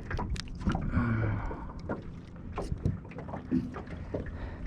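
Scattered clicks and knocks of tackle and gear being handled in a small fishing boat, as a fish is worked free of a landing net, over a low steady hum.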